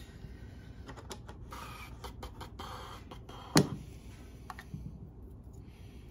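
Small metal engine parts being handled on a workbench: rustling with light clicks, and one sharp knock about three and a half seconds in, with a few lighter clicks after it.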